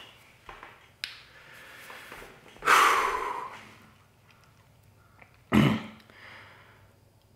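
A man's long loud exhale, a sigh, about three seconds in, fading over about a second, then a short sharp breath or cough-like burst a little before six seconds.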